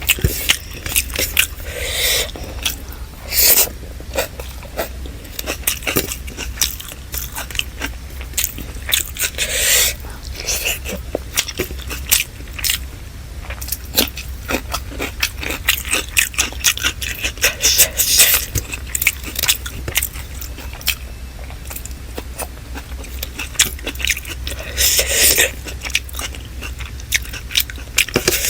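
Close-miked eating sounds of chicken biryani and salad: chewing and wet mouth clicks, with crunchy bites and scraping now and then. A steady low hum runs underneath.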